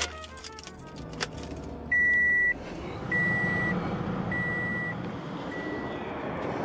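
Key clicking in a Toyota Camry's ignition, then a dashboard warning chime beeping four times about a second apart, the last beep faintest. Under the beeps the engine starts and idles.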